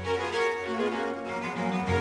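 Background music led by bowed strings, with notes held and changing.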